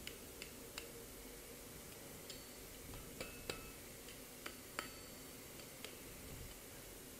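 Light, irregular hammer taps on a hot mild steel bar as it is rolled into a spiral on the anvil, about a dozen faint strikes, several with a short metallic ring.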